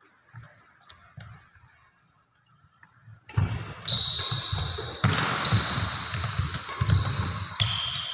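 Badminton rally on a wooden indoor court: feet thudding on the floorboards and racket strikes on the shuttlecock, faint at first. From about three seconds in, a loud hiss comes in with high steady squeals over the thuds.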